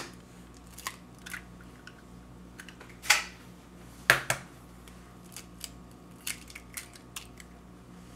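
An egg cracked into a bowl of cream cheese and mayonnaise and mashed in with a fork: scattered light clicks of the fork against the bowl, with two sharper knocks about three and four seconds in.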